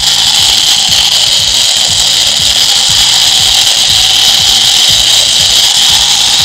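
Small battery-driven DC motor spinning a fan at full speed, a steady high whir, with thermocol (polystyrene foam) balls swirling in the inverted plastic jar above it.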